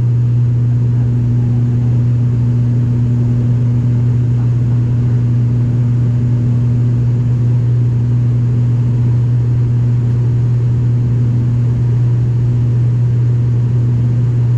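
Cabin drone of an ATR 72 turboprop's engines and propellers during the climb after take-off: a loud, steady low hum that holds an even pitch throughout.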